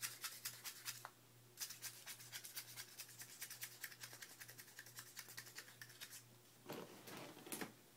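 Paper wadding being tamped down into an empty plastic 12-gauge shotgun hull with a small tool: faint, quick scratchy taps and rubbing, many a second, with a denser rustling scrape near the end.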